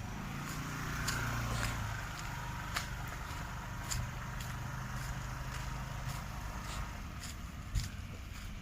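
A motor vehicle's engine running steadily, a low hum that fades out about six seconds in, with scattered sharp clicks throughout.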